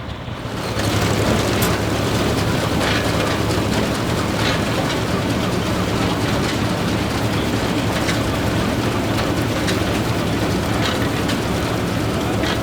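Deutz F3L514 air-cooled three-cylinder diesel and Claas Super pull-type combine running while threshing wheat: a steady, dense mechanical din over a low drone, with scattered clicks and rattles. It swells up about a second in.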